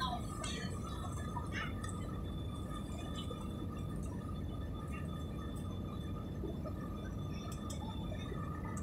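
Steady jet airliner cabin noise from a window seat during the landing approach: an even rumble of engine and airflow with a steady whine over it.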